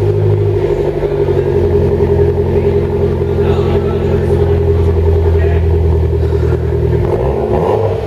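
Mitsubishi Lancer Evolution X's turbocharged 2.0-litre four-cylinder (4B11T) idling steadily through a freshly fitted Top Speed Pro1 cat-back exhaust.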